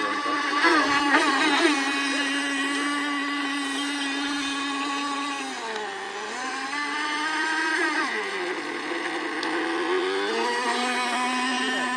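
The 3.5 cc two-stroke glow engine of an FSR-V racing model boat running at high revs on its break-in runs, with a steady high whine. Its pitch dips twice, about halfway through and again a few seconds later, then climbs back each time.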